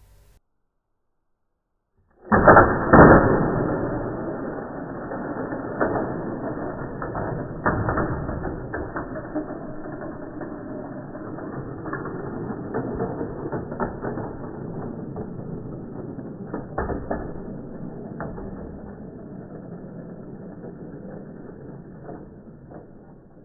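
Slowed-down slow-motion sound of die-cast Matchbox cars on a Cyclone 5000 plastic race track: a deep mechanical clatter with scattered knocks. It starts suddenly about two seconds in, is loudest at first, then fades gradually.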